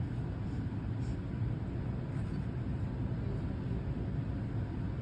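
A steady low rumbling hum, even throughout, with nothing else standing out.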